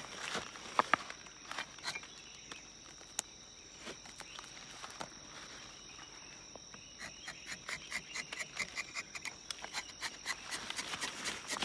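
Steady high-pitched insect drone, like crickets, with scattered clicks and knocks. About seven seconds in, a run of quick ticks begins, several a second.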